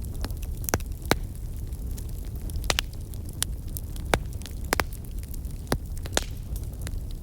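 Campfire burning with irregular sharp crackles and pops of burning wood, about a dozen, over a steady low rumble of wind.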